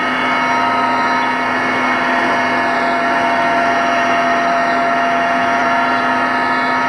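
Mi-8MTV-1 helicopter in flight, heard from inside the cabin: a loud, steady whine of several held tones over a dense mechanical rush.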